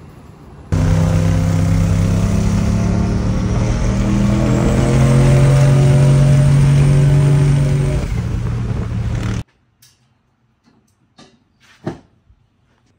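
Turbocharged LS V8 truck engine heard from inside the cab while driving on the highway. The engine note pulls and holds under load, with a faint high whine rising a few seconds in. It cuts off suddenly and gives way to a few faint ticks.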